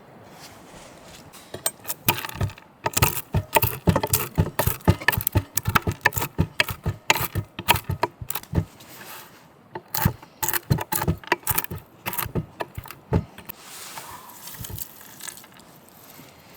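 Rapid series of sharp clicks and clinks from small hard objects knocking together, a few a second, starting about two seconds in and thinning out near the end.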